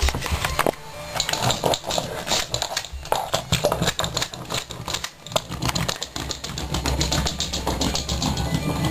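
Wind-up toy's clockwork mechanism running, a rapid clicking rattle that turns into an even, fast run of clicks in the second half, over a steady low hum.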